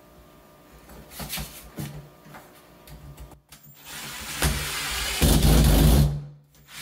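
A cordless drill drives a screw into a shelf bracket. After a few light knocks, its motor starts about four seconds in, runs for about two seconds and grows loudest as the screw seats, then stops.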